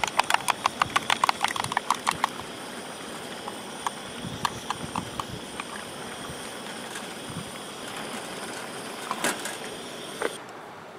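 Portable gas camping stove burner hissing steadily, shut off suddenly about ten seconds in, heating a pot of instant ramen. Rapid light clicking for the first two seconds, with a few scattered clicks a little later.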